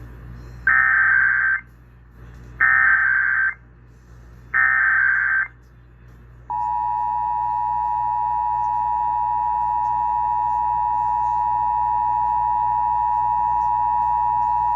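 Emergency Alert System SAME header: three short bursts of warbling data tones, each about a second long with a second's gap between them. About six and a half seconds in, the steady two-tone EAS attention signal starts and holds, marking the start of a Required Monthly Test.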